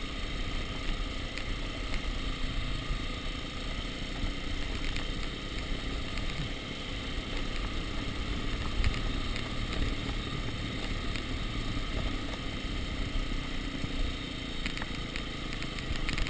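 Dirt bike engine running steadily at low revs as the bike rolls down a rough stony track, heard from on the bike, with many small rattles and knocks from the bike jolting over the stones.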